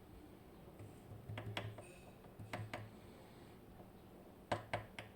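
Small metal parts of a disassembled Medeco M4 lock clicking as they are handled and set down: three pairs of light, sharp ticks, the last pair near the end the loudest.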